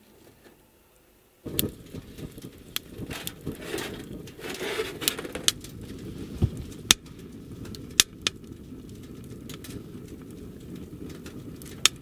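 Wood fire burning inside a small titanium tent stove. It starts suddenly about a second and a half in as a steady low rush, with sharp crackles and pops scattered irregularly through it.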